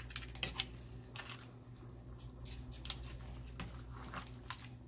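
A spoon stirring sauce-coated crawfish, crab legs, corn and potatoes in a nonstick pan: scattered soft clicks and wet squishes as shells and corn knock against the spoon and pan, over a steady low hum.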